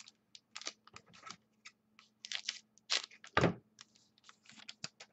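Football trading cards being handled and flipped through, with irregular light clicks, slides and rustles of card against card, and one duller thump about three and a half seconds in.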